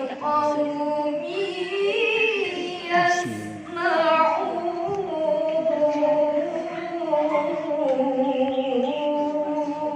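Melodic Quran recitation (tilawah) by a single voice: long drawn-out notes that bend slowly up and down, with brief pauses for breath.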